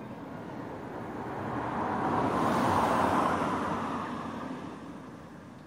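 A car passing by: a rush of road noise that swells, is loudest about halfway through, and fades away.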